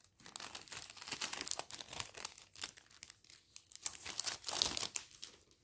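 Clear plastic packaging crinkling in irregular crackles as it is handled and taken off a diamond painting notebook.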